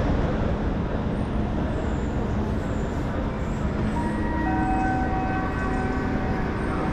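NS Class 1600 electric locomotive running: a steady rumble and hum, joined about four seconds in by several thin whining tones.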